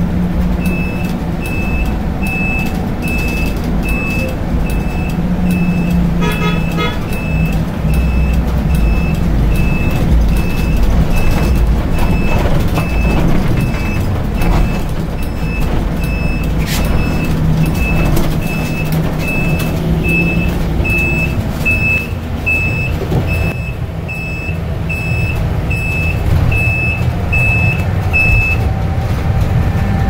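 Steady vehicle and road noise while riding in traffic, with a short, high electronic beep repeating a little over once a second that stops shortly before the end. A brief run of quick chirps comes about six seconds in.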